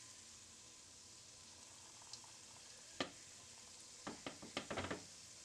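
Dough fingers frying in a pan of hot oil: a faint steady sizzle, with one sharp click about three seconds in and a quick run of crackles and pops near the end.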